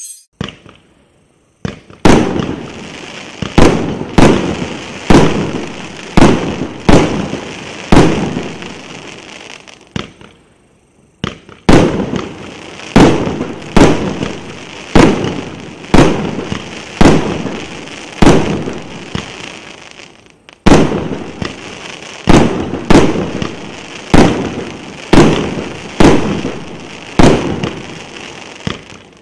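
A 1.2-inch, 49-shot fireworks cake firing: a steady run of sharp shots about one a second, each trailing off before the next. The shots start about two seconds in and break off for about a second and a half near the middle before going on.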